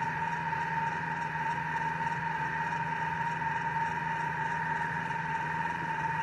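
Thermomix motor running steadily as it cooks, a constant hum with a steady high whine.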